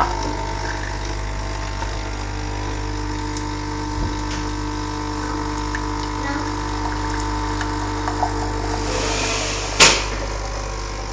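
Nescafé Dolce Gusto Mini Me capsule machine's pump running with a steady hum as it dispenses into the cup. A hiss builds about nine seconds in, and a sharp click follows.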